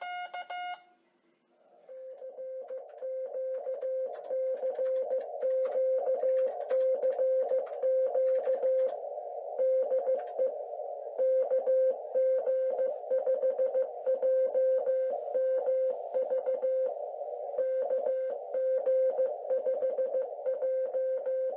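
Morse code sent as a steady beeping tone, switched rapidly on and off in dots and dashes, from a Microcraft Morse-A-Keyer's built-in speaker. A brief higher beep sounds at the very start, followed by about a second's pause before the code begins.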